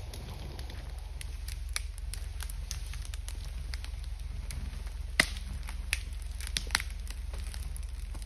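Douglas fir log dragged downhill by a winch cable through brush and forest litter, twigs and branches snapping and crackling in a scatter of clicks, with a few sharper cracks about five and seven seconds in. A steady low drone runs underneath.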